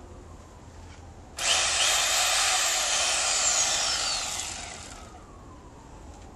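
Chainsaw starting up suddenly at full throttle about a second and a half in, running hard for about three seconds, then released, its pitch falling as it winds down and fades.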